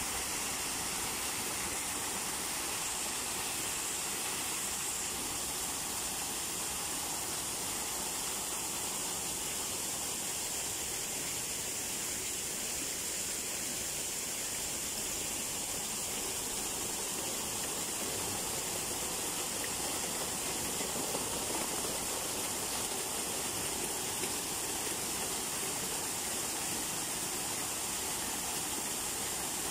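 Small garden waterfall, several thin streams splashing into a shallow rock pool: a steady, even hiss of falling water.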